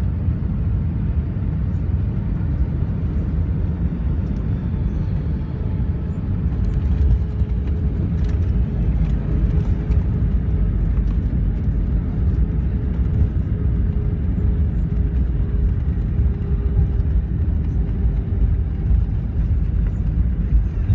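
Cabin noise of an Airbus A319 landing: a loud, steady low rumble as the airliner touches down and rolls out along the runway with its wing spoilers raised. It grows a little louder about seven seconds in, with a faint hum slowly falling in pitch.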